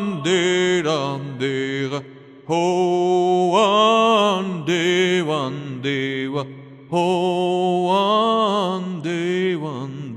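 A man chanting a slow, melodic improvised song in syllables of no known language, in three sustained phrases with short breaths between them.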